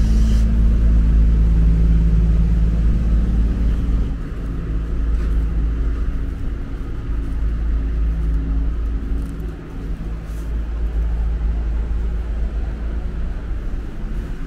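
A large vehicle engine idling: a steady low drone with a hum, a little fainter after about four seconds.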